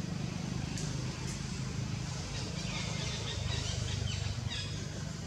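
Outdoor ambience: a steady low hum, with a flurry of short, high, falling chirping calls from an animal between about two and a half and four and a half seconds in.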